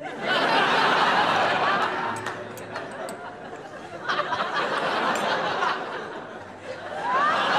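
Studio audience laughing in waves: a burst just after the start that fades, another swell about four seconds in, and a third rising near the end.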